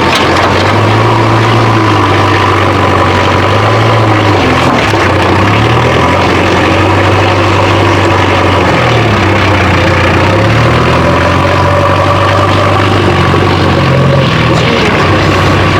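Backhoe loader engine running steadily, its pitch dipping and rising a little now and then.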